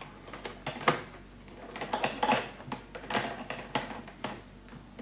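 Irregular clicks and rattles of a socket wrench on a long extension being worked and handled on metal parts, with one sharp click about a second in.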